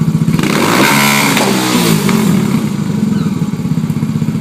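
Husaberg single-cylinder engine of a Formula Student race car idling with a lumpy pulse, then blipped: the revs climb sharply about half a second in and fall back to idle over the next two seconds, with a couple of sharp pops as they drop.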